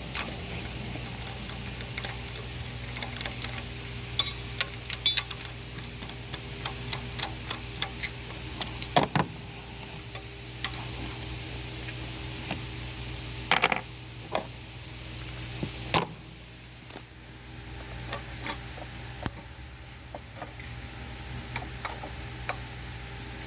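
Scattered metallic clicks and clinks, typical of hand tools and small metal parts being handled during engine work, over a steady low hum. The loudest clinks come about 9, 13 and 16 seconds in, and the hum drops a little after the last of them.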